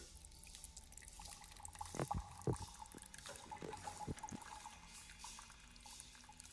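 Faint dripping: a handful of soft drops fall between about two and four and a half seconds in, over a low hiss and a faint steady tone.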